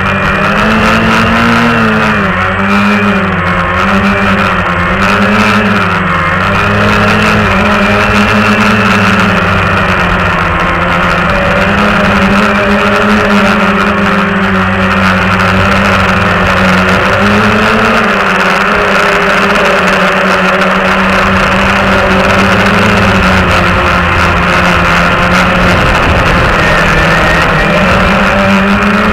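Walkera QR X350 quadcopter's four motors and propellers buzzing, heard from on board. The pitch wavers up and down again and again as the motors speed up and slow down, most in the first few seconds and again near the end.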